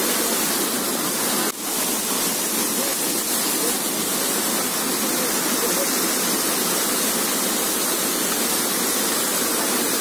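Hum-Hum waterfall in full flow: a steady, dense rush of falling water, with a brief dip about one and a half seconds in.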